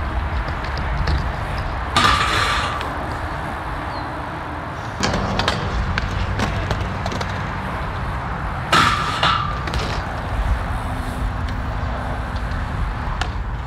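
Outdoor skatepark ambience: a steady low rumble, broken by a loud sharp clatter with a short ringing tone about two seconds in and another near nine seconds, with a smaller knock around five seconds.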